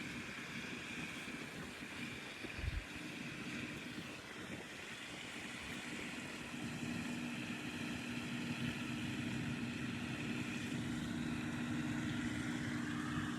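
Steady mechanical hum, with two low droning tones throughout, like a distant motor running. A single short thump comes about two and a half seconds in.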